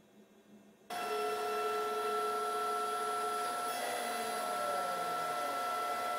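Shop-built KRMx02 CNC router running, its spindle and dust extraction making a steady whine with several even tones over a hiss. The sound starts abruptly about a second in. Partway through, gliding tones come in while the cutter head moves down toward the drawer front.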